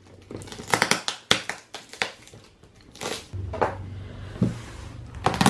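Clear plastic packing tape being peeled and torn off a cardboard box: a series of sharp rips and crackles with rustling in between.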